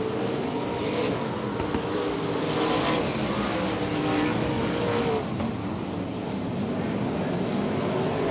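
A pack of 360 wingless sprint cars racing on a dirt oval. Their 360-cubic-inch V8 engines rise and fall in pitch together as the cars lift and get back on the throttle through the turns.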